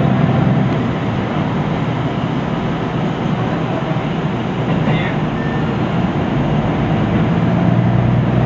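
Onboard running sound of a KiHa 75 diesel railcar: the diesel engine drones under a steady rumble of wheels on welded long rail, with no rail-joint clatter. The engine drone eases off for a few seconds, then swells again near the end.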